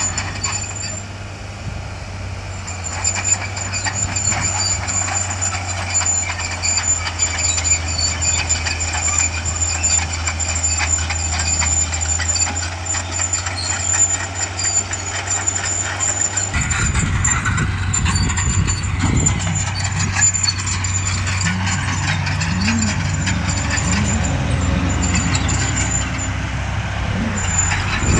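Heavy diesel engines of earthmoving machinery, a bulldozer and dump trucks, running steadily. About sixteen seconds in, a louder engine joins, its pitch rising and falling.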